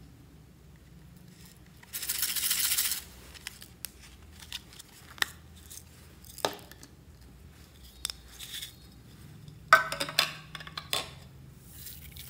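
Blue plastic sequins rattling in a small plastic case as it is handled and tipped out. About a second of loud rattling comes about two seconds in, then a few single clicks, then a burst of sharp clicks and rattles near the end.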